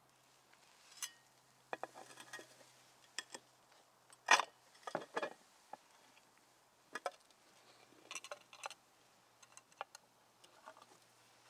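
Cast-iron sandwich iron being closed over a sandwich and latched on a wooden table: a series of metallic clanks, clicks and knocks, the loudest clank about four seconds in.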